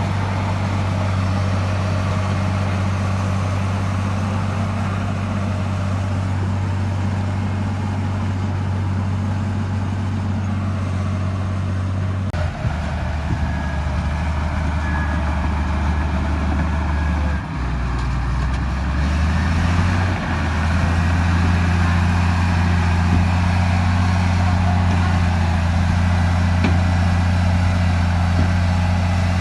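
Bulldozer's diesel engine running steadily under load. Its note drops about halfway through, then climbs back in two steps as the engine speed changes while it works.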